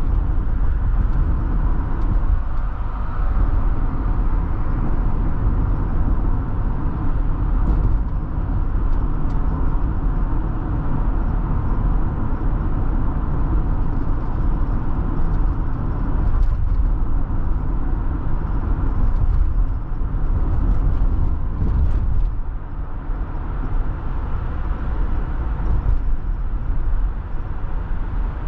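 Steady low road and engine noise of a car driving, heard from inside the cabin, with tyres on asphalt making up most of the sound.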